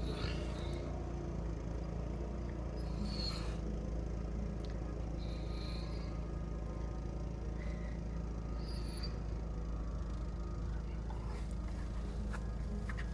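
Case Ingersoll 224 garden tractor's engine running steadily under load while its front snowblower throws snow through heavy drifts, heard muffled through window glass. A few short high squeaks come and go over the drone.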